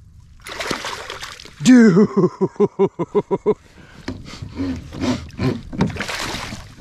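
Water splashing as a hooked fish is netted beside a kayak, the fish thrashing in the landing net near the end. About two seconds in, a loud, rapid run of about ten pitched vocal pulses rises over the splashing for under two seconds.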